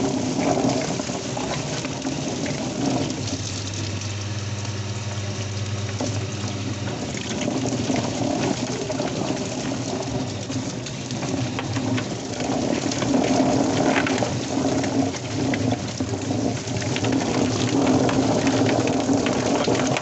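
Drum-type chicken plucker running, its spinning drum tumbling a wet chicken against rubber plucking fingers while a garden hose sprays water into the tub: a steady wash of splashing water with a running hum and many small knocks. About three seconds in, a lower steady hum joins for about four seconds.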